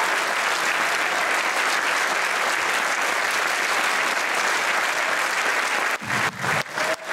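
A congregation applauding steadily, a standing ovation; the clapping dips briefly a couple of times near the end.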